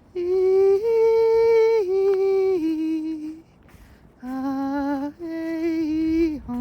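A single voice singing or humming wordless, held notes: two phrases of long sustained tones that step down in pitch, with a pause of about a second between them.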